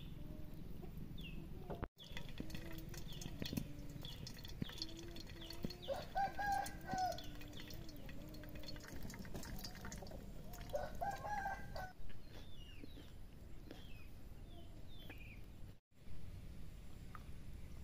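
Chickens clucking and calling, with two louder, short calls about six and eleven seconds in. Small birds chirp high above them.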